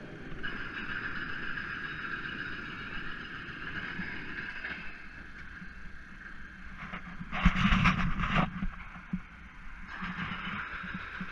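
Steady hum of a boat engine running, with a brief loud rush of noise about seven and a half seconds in that lasts about a second.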